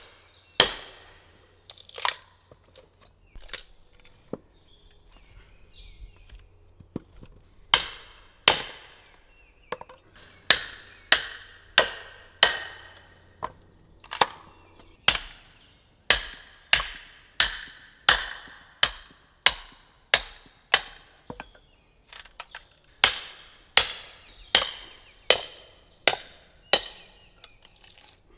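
Mallet blows on the back of a froe, driving it down through an upright log to split off wooden roof shingles. The blows are sharp knocks with a short ring. A few come spaced apart at first, then from about ten seconds in they come in a steady run of about one and a half a second.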